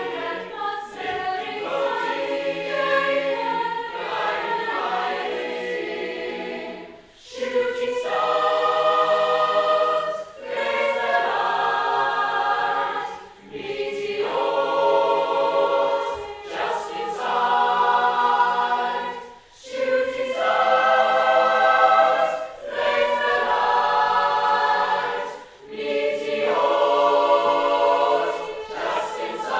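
Choir singing in harmony, with no instruments apparent: moving lines at first, then held chords of about three seconds each, broken by short breaths.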